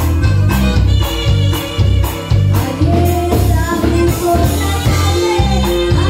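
Live norteño band playing a dance tune: a steady drum beat at about two strokes a second, walking bass notes, bajo sexto strumming and a sung melody.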